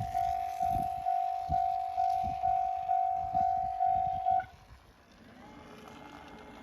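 Japanese railway level-crossing warning bell ringing about twice a second, then cutting off suddenly about four and a half seconds in, once the train has cleared the crossing.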